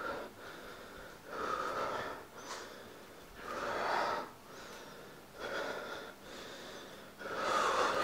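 A person breathing heavily through the mouth, in and out, with a breath about every two seconds.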